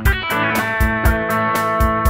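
Instrumental rock music: electric guitars, Fender Telecaster and Esquire, playing over a steady programmed drum-machine beat. A new chord is struck right at the start.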